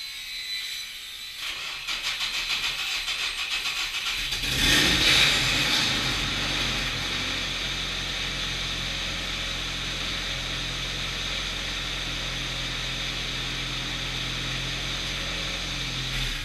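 Wood chipper engine cranked by its starter with a rhythmic pulsing, catching about four seconds in with a brief rev, then settling into a steady run.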